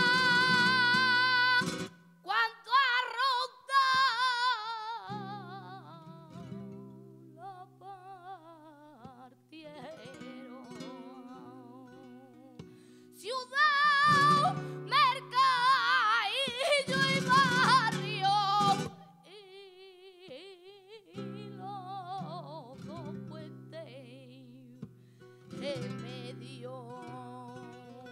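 Female flamenco singer singing a polo in long melismatic lines, accompanied by a flamenco guitar. The voice is loudest near the start and again through a long passage about halfway through, with softer singing over the guitar between.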